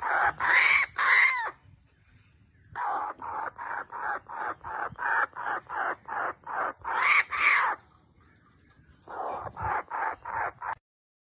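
A bird giving harsh cawing calls in quick succession, about three a second, in three runs broken by short silences; a few calls near the middle rise and fall in pitch. The calls stop shortly before the end.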